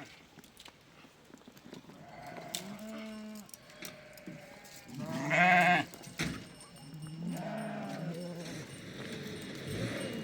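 Sheep bleating: three wavering bleats, the loudest about five seconds in.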